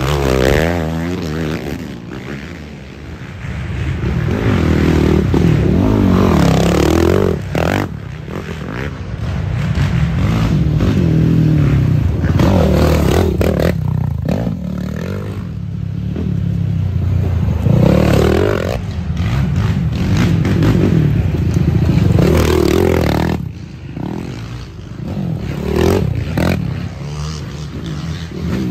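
Racing ATV (quad) engines revving hard as the quads pass close one after another, each pass swelling up and falling away, with the pitch rising and dropping through gear changes and throttle.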